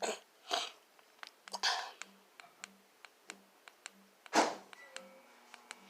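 Irregular light clicks and taps, a dozen or more spaced unevenly, with a few soft swishing noises, the loudest about four and a half seconds in.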